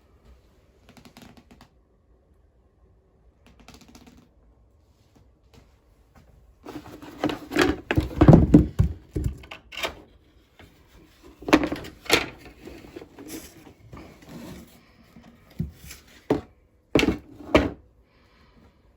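Irregular knocks and clattering thuds: a few faint ones at first, a loud busy cluster about a third of the way in, then scattered sharp knocks to the end.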